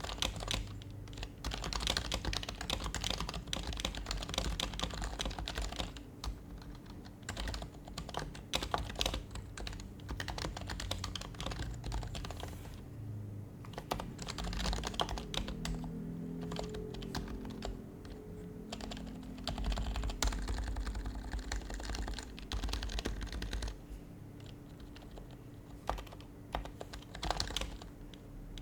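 Typing on an HHKB Professional HYBRID Type-S keyboard, its quietened Topre capacitive keys giving soft, muted clacks. The keystrokes come in quick runs broken by short pauses.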